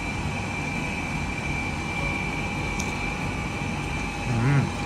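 Steady mechanical room hum, as from indoor ventilation or air conditioning, with a faint high whine held on one pitch.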